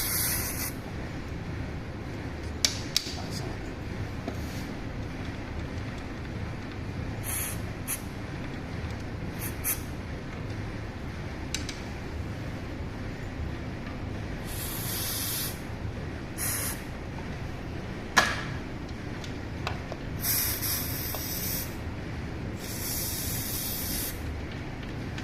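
Short hissing bursts from an aerosol spray can, about seven of them a few seconds apart, the longer ones a second or more. A few sharp clicks fall between them, the loudest about eighteen seconds in.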